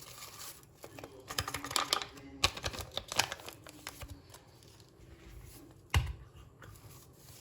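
Quick light clicks and rustling of objects being handled, with two sharper knocks about two and a half seconds and six seconds in.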